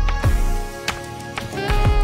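Background music: sustained instrumental notes over deep drum hits.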